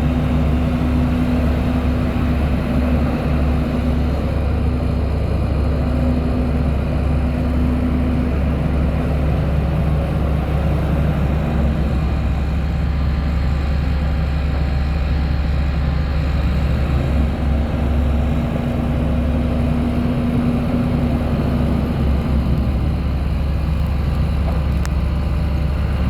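Diesel engine of a 2002 Terex 760 4x4 loader backhoe running steadily at a constant speed, with a humming tone that fades in and out a few times.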